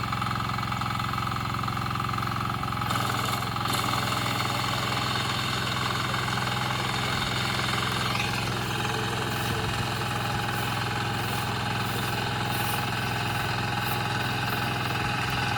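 Paddy reaper machine's engine running steadily at a constant speed. About three seconds in, a higher hissing rattle joins the engine note.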